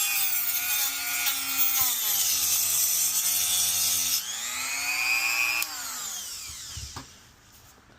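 Rotary tool cutting into the plastic, silicone-filled housing of a dryer control board, its whine sagging in pitch as it bites under load and then picking back up. About five and a half seconds in it is switched off and winds down.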